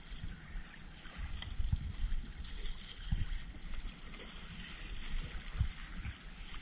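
Choppy water splashing and lapping against a kayak, with wind noise and a few irregular low knocks against the hull.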